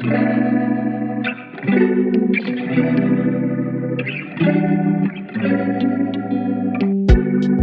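Background music: guitar chords with a chorus effect, changing about every second and a half, with a drum beat coming in near the end.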